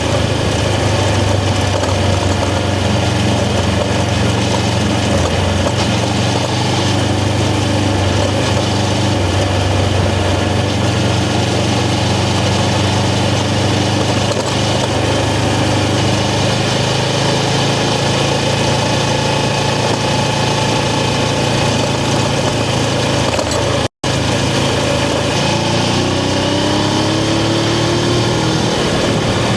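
Suzuki GS500's air-cooled parallel-twin engine running steadily at low revs, with a short rise in pitch near the end. The sound cuts out for an instant about three-quarters of the way through.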